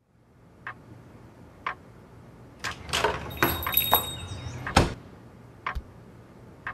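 A few sharp clicks and knocks, roughly one a second, over a low steady hum. The loudest comes just before five seconds in, and a brief high steady tone sounds just before it.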